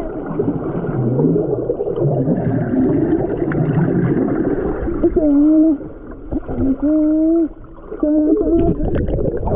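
People's voices making long, wavering calls and wails that rise and fall in pitch, in a swimming pool. The loudest calls come about five and seven seconds in.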